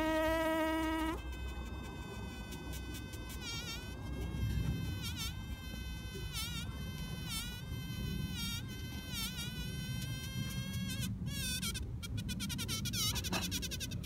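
Buzzing of a mating pair of bees on the ground. It is louder and lower at the start, then higher and thinner from about a second in, with brief dips in pitch every second or so and a quick crackling stretch near the end.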